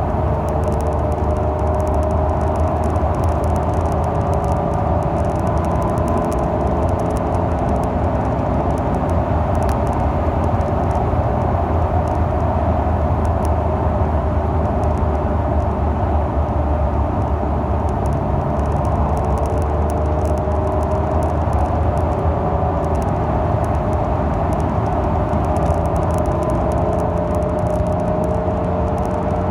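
Peugeot 406 Coupé's V6 engine running steadily, its pitch drifting a little up and down, with fine crackling clicks from the microphone over it.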